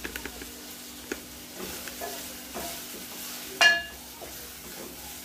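A wooden spoon stirs onions frying in an aluminium pot, with a faint sizzle and small scrapes and clicks. About three and a half seconds in the spoon knocks the pot once with a loud metallic ring.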